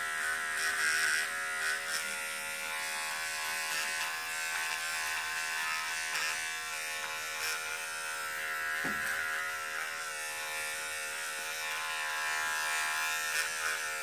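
Electric razor running with a steady buzz, its cutter being passed over a sock to shave off loose threads and fuzz.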